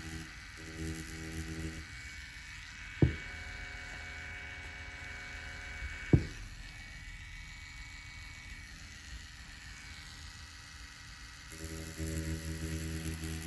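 Spectra Flux rotary tattoo pen machine running with a steady hum, stopping about two seconds in and starting again near the end. In the pause there are two sharp clicks about three seconds apart.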